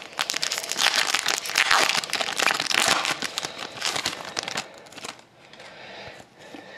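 Foil wrapper of a 2012-13 Fleer Retro hockey card pack being torn open and crinkled: a dense, crackling rustle that dies down about four and a half seconds in, leaving soft handling of the cards.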